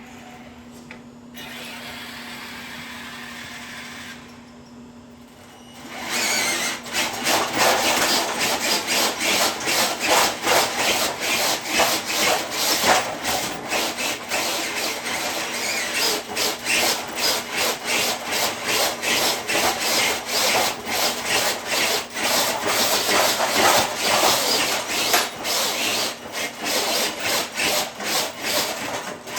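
A radio-controlled truck pulling a dead-weight sled: a rough, fast-fluctuating scraping and grinding starts about six seconds in and keeps on. Before that there is a quieter steady hum.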